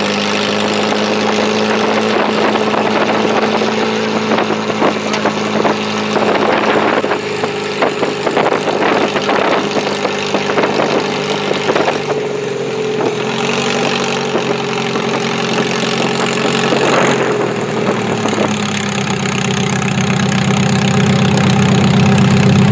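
Demolition derby car engines running hard and steady, with many sharp knocks and clanks, most of them from about six to eleven seconds in. Near the end a deeper, louder engine drone takes over.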